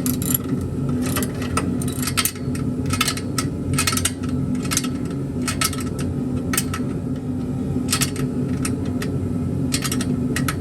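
Hand wrench tightening an exhaust header bolt: irregular sharp metal clicks, one to three a second, over a steady low hum, until the bolt is as tight as it will go.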